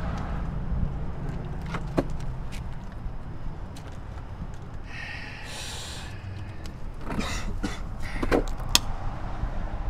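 Steady low background rumble with scattered knocks and clicks. A brief hiss comes about five seconds in, and a cluster of knocks follows near the end.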